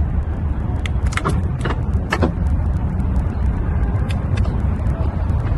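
Car engine running with a steady, deep rumble, with a few short clicks between about one and two and a half seconds in.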